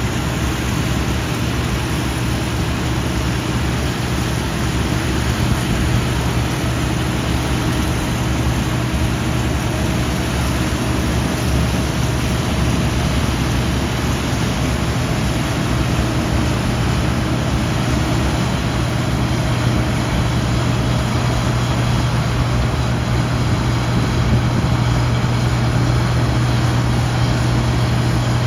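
Combine harvester running steadily in the field, a constant engine drone that holds one pitch throughout.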